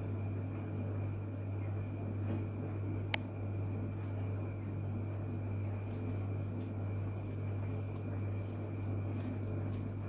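A steady low hum, over which a small knife faintly scrapes the skin and spines off a snake plant leaf; one sharp click about three seconds in.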